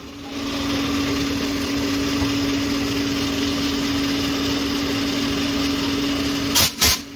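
Electric blower motor of a ball-shooting air gun running with a steady hum. Two sharp knocks come near the end.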